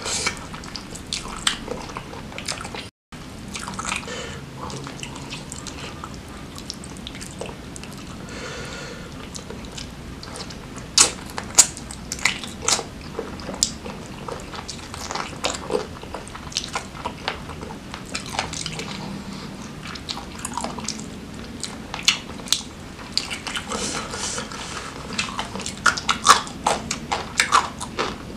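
Close-miked eating sounds of grilled chicken with sambal and raw cabbage: chewing and mouth clicks in a dense, uneven run, busier near the end. A brief cut to silence about three seconds in.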